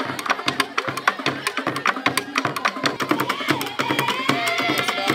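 Traditional drum and percussion music with rapid, sharp strokes several times a second over a low drum pulse. About three seconds in, a high wavering melody joins.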